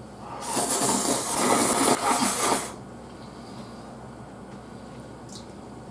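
A person slurping mapo harusame glass noodles in one long, loud slurp of about two seconds, with a brief break near its end.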